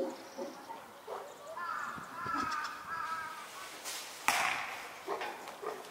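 Crows cawing, a series of harsh calls at some distance, with a short sharp harsh burst a little after four seconds in.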